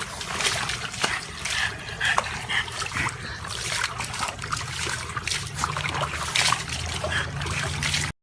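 Water splashing and trickling in quick, irregular spatters, cutting off suddenly near the end.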